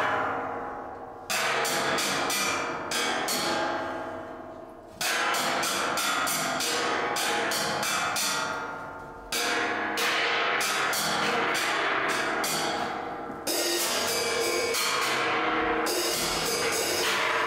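Live percussion music: cymbals and drums struck over and over, with a big cymbal crash about every four seconds that rings on and fades away, over held ringing tones.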